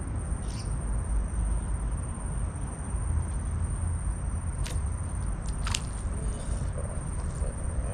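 Outdoor riverbank ambience: a steady low rumble with a thin, constant high whine, and two short sharp clicks about a second apart roughly five seconds in.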